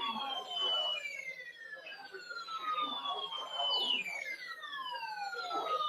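Siren-like electronic tones that glide down in pitch and start again about every three seconds, heard over weather radio audio.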